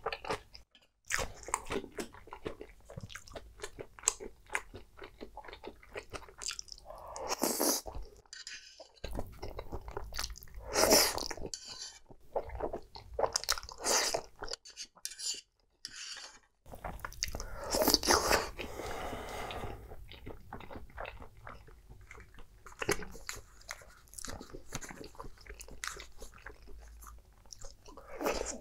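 Close-miked mouth sounds of eating creamy pasta: wet chewing with small clicks, broken by several long slurps of noodles, and a crunchy bite near the end.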